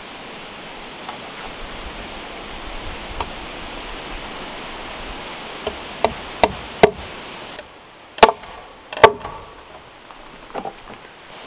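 Hammer blows on a pine half-round slab: a quick series of sharp strikes about six seconds in, then the two loudest blows, each with a short ringing tone, about a second apart near the end, over a steady background hiss.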